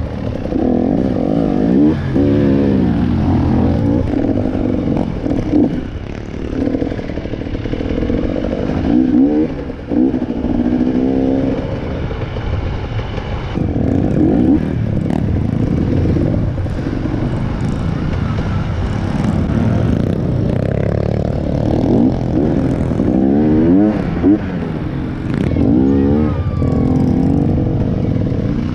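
Dirt bike engine under way, revving up and dropping back again and again as the throttle is worked on a rough dirt trail.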